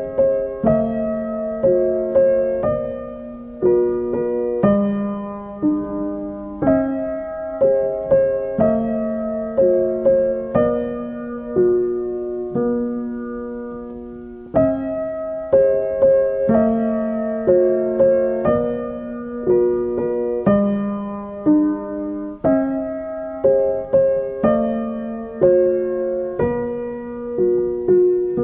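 Background piano music: a slow, gentle melody of struck notes and chords, each note fading after it is played.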